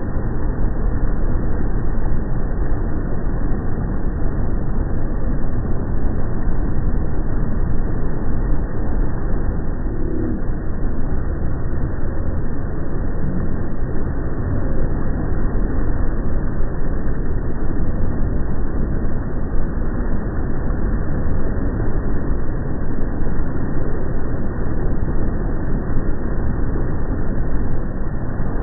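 Motorboat under way: its engine and churning wake make one steady, low rushing noise.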